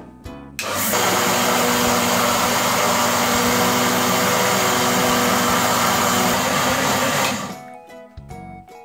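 Electric mixer grinder (mixie) running steadily for about seven seconds, grinding parboiled rice into a coarse batter; it starts abruptly just after the start and stops near the end.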